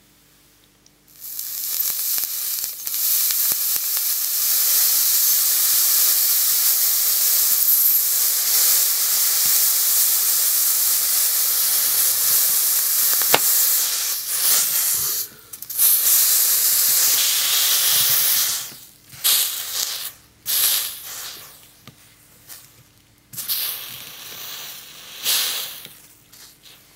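Hot steel knife blade sizzling and hissing as it cuts into pomegranate flesh, the juice boiling off the blade as steam. The hiss starts about a second in and holds steady for about fourteen seconds, then breaks off and comes back in shorter spurts towards the end.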